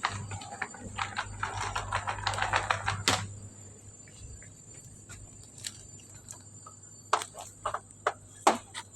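A run of sharp clicks and taps, dense for the first three seconds and ending with a loud click, then a few scattered louder clicks after a quieter stretch.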